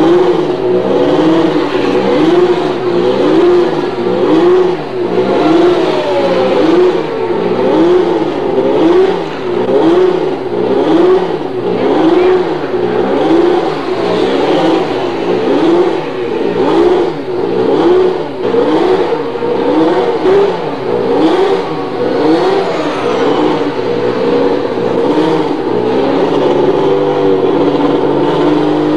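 Indy car engines running, their note rising and falling about once a second over and over, then settling into a steady hum near the end.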